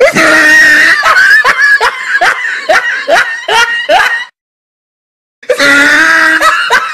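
High-pitched snickering laugh sound effect, in quick repeated bursts about two or three a second. It breaks off about four seconds in and starts again a second later.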